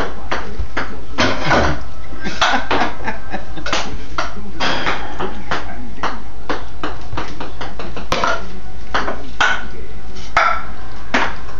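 Ping pong ball struck back and forth with table tennis paddles: an irregular series of sharp clicks.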